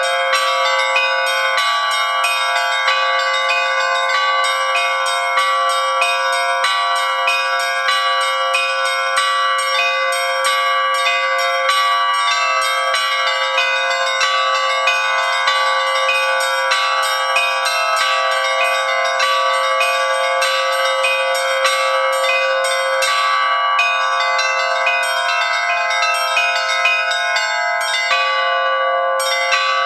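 Russian Orthodox church bells rung by hand: a continuous peal of rapid, evenly paced strikes on the smaller bells over the long, overlapping ring of larger bells.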